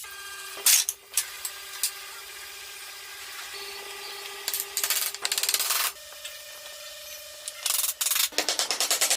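A tool scraping and rasping on wood in rapid strokes, coming in several bursts, over a steady hum that steps up in pitch about six seconds in.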